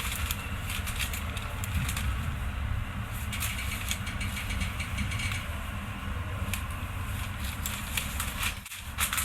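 Steady low hum and rumble inside an electric commuter train car at or near a standstill, with scattered light clicks.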